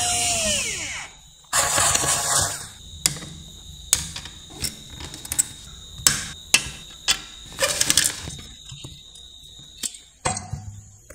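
Cordless drill-driver backing out the circuit-board screws of a battery charger, its whine dropping in pitch as it winds down at the start, with a second short run about a second and a half in. Scattered clicks and knocks follow as the board and its wires are handled and lifted out of the metal case.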